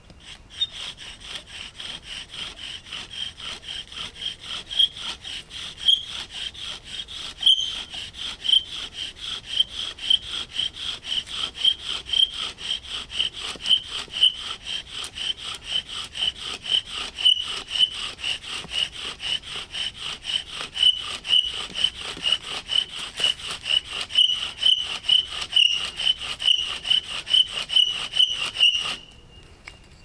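Bow drill being worked fast for a friction fire: the bow is sawed back and forth in a steady rhythm of about two to three strokes a second, and the drill squeals high on every stroke. The spindle's top turns in the handle of a CRKT M21-04 folding knife used as the bearing block. The strokes stop suddenly near the end, when the drilling has produced a coal.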